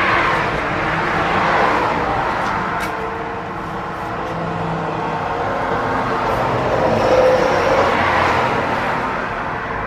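Road traffic: cars passing by, the tyre and engine noise swelling once about a second and a half in and again around seven or eight seconds in.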